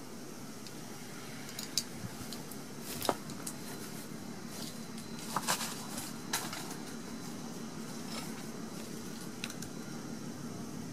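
A handful of short, sharp clicks and taps from hands and a knife handling things, scattered over a steady low background noise, most of them about three seconds in and again between five and six and a half seconds in.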